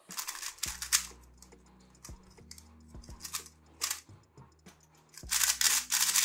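MoYu WeiLong WR M 2021 magnetic 3x3 speed cube being turned fast during a solve: irregular bursts of light plastic clacking, with a dense run of turns about five seconds in.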